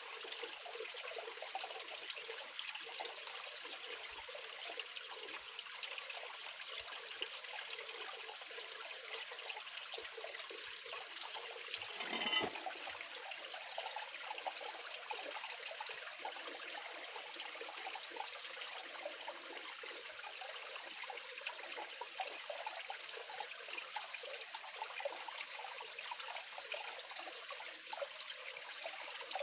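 Water sloshing and trickling as a gold pan is swirled under shallow muddy water to wash out sediment, with one brief louder splash about twelve seconds in.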